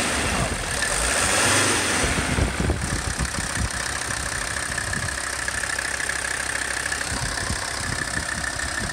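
Mercedes 300SD five-cylinder diesel engine idling steadily, with diesel knock throughout. The engine is being checked for air coming from the injector lines.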